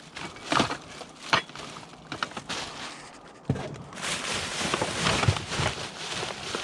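Scrap being handled and rummaged: a few separate knocks and clunks, then from about four seconds in a continuous rustling, crackling clatter.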